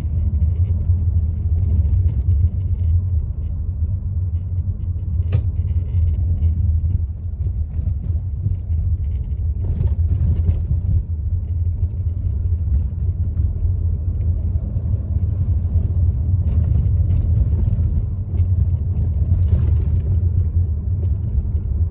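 Volkswagen Tiguan cabin noise: a steady low road and engine rumble, with a few brief, faint, higher-pitched rustling sounds scattered through it. The owner likens the unexplained noise to paper against a fan, only more ringing, and has ruled out loose items in the glovebox and door pockets and the air conditioning.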